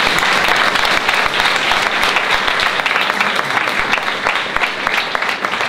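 Audience applauding: dense clapping from many hands that eases off slightly near the end.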